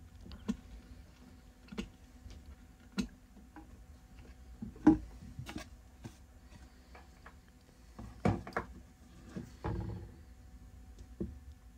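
Handling noise from a small guitar combo amp's wooden cabinet and loose particleboard back panel being lifted and turned over: scattered knocks, taps and light scrapes, the sharpest knock about five seconds in and a cluster of bumps in the last few seconds.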